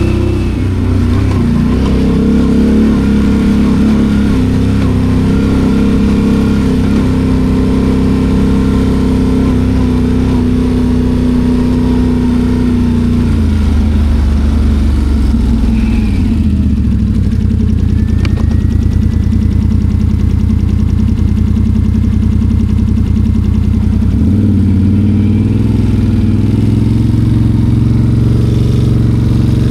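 Can-Am Outlander 850 XMR ATV's V-twin engine running under way, its pitch dropping about halfway through and rising again near the end.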